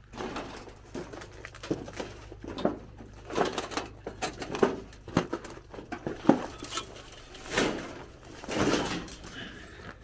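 Footsteps crunching on dry gravel and brush, an uneven step or two a second, with a couple of longer, louder scuffs near the end.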